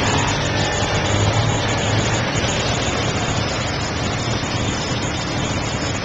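Busy city street traffic: motor vehicle engines idling and running close by, a steady mixed noise with a low engine rumble that is strongest in the first couple of seconds.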